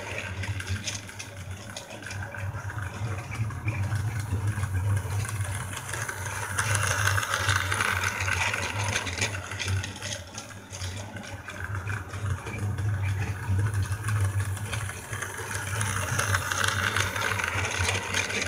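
Battery-powered toy train running around a plastic track loop: its small motor and gears whir steadily with a rattle of wheels on the track. The sound swells and fades twice as the train circles, loudest as it passes near the end.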